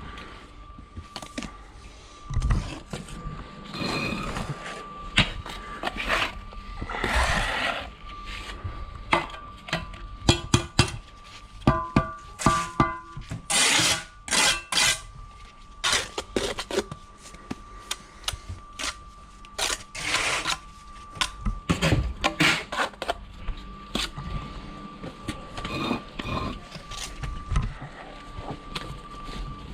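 Bricklaying trowel work: metal clinking and sharp taps on concrete blocks, with mortar scraped about in short strokes. A thin steady tone and some music lie underneath.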